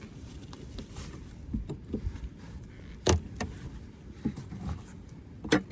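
Wooden hive frames being handled in a Layens hive box: scattered light clicks and scrapes, with a sharper wooden knock about three seconds in and another near the end.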